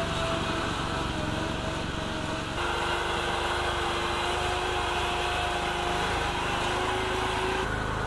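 Single-cylinder 420cc Predator engine of a small home-built 4x4 truck running steadily under load as the truck drives along. The sound changes abruptly about two and a half seconds in and again near the end.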